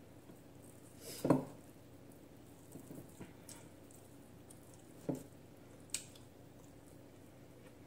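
Quiet hand-eating sounds: fingers squishing beef steak and rice together on a plate, with a few short soft clicks. The loudest comes a little over a second in.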